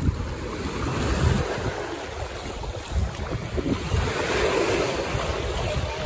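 Small sea waves breaking and washing over rocks and shingle at the shoreline, with a surge about four seconds in. Wind buffets the microphone throughout.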